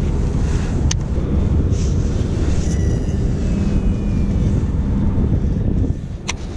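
Steady low wind rumble buffeting the microphone, with two sharp clicks, about a second in and near the end.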